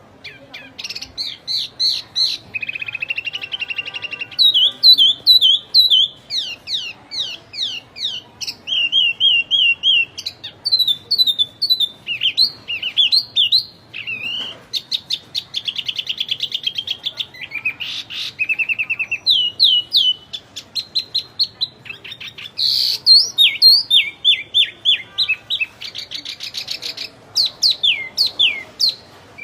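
A wambi songbird singing nonstop: a rapid, varied song of sharp chirps, quick trills and short whistled notes that drop in pitch, with hardly a pause.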